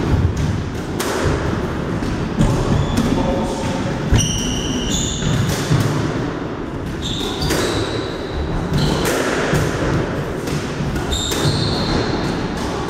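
A squash rally: the ball cracks off rackets and the front and side walls again and again, with short high squeaks of court shoes and thudding footsteps on the wooden floor.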